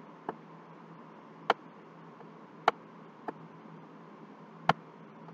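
Five sharp, separate clicks at uneven intervals, the last and loudest a little before the end, over a faint steady hiss and low hum: the clicks of the input device used to write an annotation on screen.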